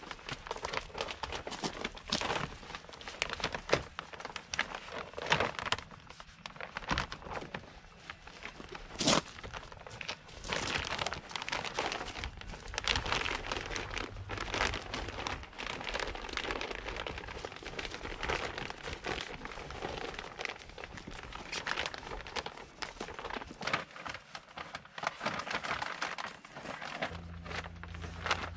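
6-mil polyethylene vapour-barrier sheeting crinkling and crackling as it is pulled and smoothed by hand, in irregular rustles broken by sharp crackles.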